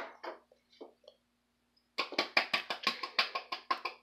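Diced bell pepper being knocked out of a small bowl into a stainless steel mixing bowl: a quick run of about a dozen light taps, roughly seven a second, starting about two seconds in.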